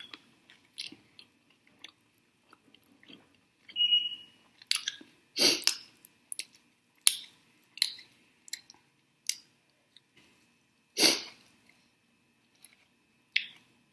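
Close-miked chewing and wet mouth sounds of someone eating a sauced chicken drumstick: scattered smacks and clicks, with louder ones about five and eleven seconds in.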